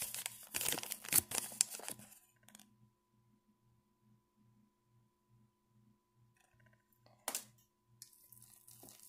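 Wire whisk clicking rapidly against a mixing bowl for about two seconds as yeast is stirred into flour. A short, sharp rustle comes near the end.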